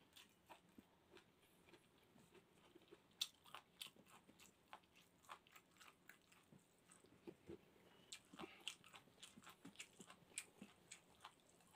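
Faint close-up chewing with the mouth closed: soft, irregular clicks and small crunches.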